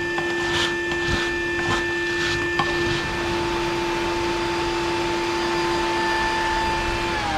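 Vacuum motor running with a steady whine, a few sharp knocks in the first seconds, then winding down in pitch near the end.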